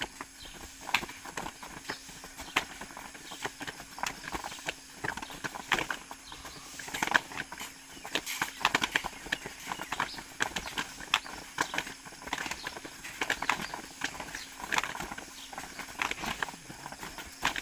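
Irregular sharp taps and slaps, several a second, from a group of people exercising, over a faint steady hum.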